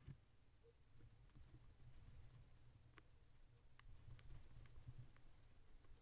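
Near silence over a low steady hum, with a handful of faint clicks and scratches in the second half from a barn owl preening and shifting on the nest box floor.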